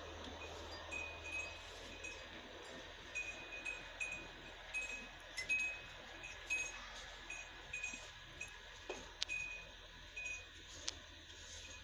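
Metal-tube wind chime tinkling lightly in the wind: short, high, faint clinks coming at irregular intervals, with a few sharper ticks.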